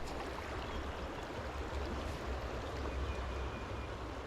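Creek water running steadily, an even rushing hiss with a low rumble underneath.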